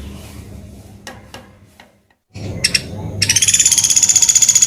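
Pelatuk beras woodpecker calling: a loud, high-pitched rapid rattling trill lasting about a second and a half, starting a little past halfway, after a few faint clicks.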